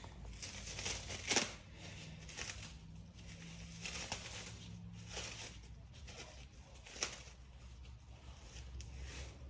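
Brake pads being handled, with faint rustling and scraping and two sharp clicks, one about a second and a half in and one about seven seconds in.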